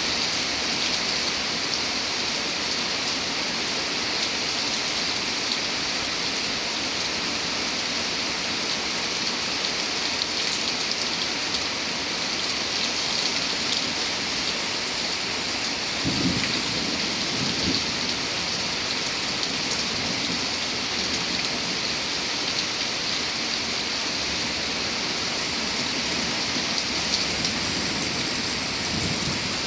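Steady heavy rain falling, an even hiss throughout. A couple of short low rumbles of thunder come a little past halfway, with fainter ones near the end.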